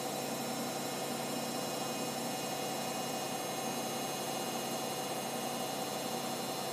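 Hoover Optima washing machine on its final spin, the motor and drum running at a steady high speed with a constant whine and hum.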